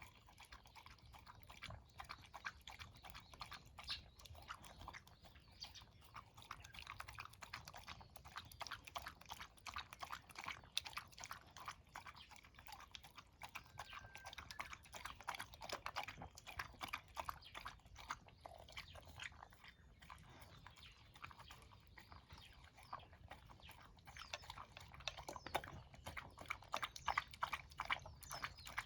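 A small pet crunching and chewing its breakfast: a quiet, irregular run of many small crisp crunches, growing busier a few seconds before the end.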